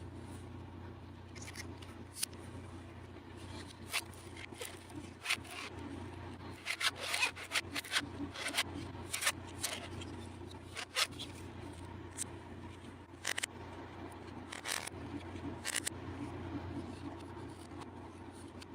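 Scattered short scrapes and clicks, densest about seven to nine seconds in, over a steady low hum.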